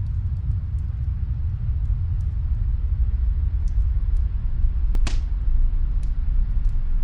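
Snowstorm wind blowing as a steady low rumble, with faint crackles from a wood fire and one sharper crack about five seconds in.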